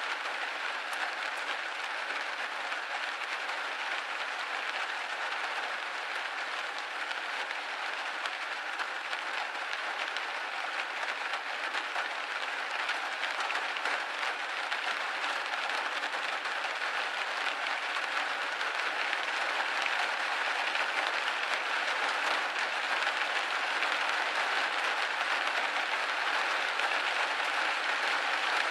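Steady rain hitting a window pane: a dense, even hiss of many drops with no single hits standing out, growing slightly louder in the second half.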